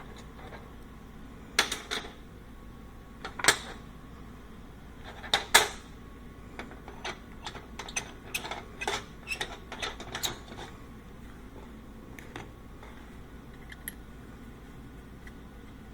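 Steel workpieces being handled: a few loud sharp metallic knocks, then a quicker run of lighter clicks and clinks, with scattered single clicks near the end.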